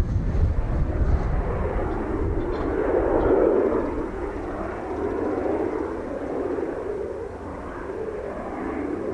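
Kawasaki T-4 jet trainer's turbofan engines rushing past, swelling to their loudest about three seconds in and then fading off. Strong wind buffets the microphone in the first couple of seconds.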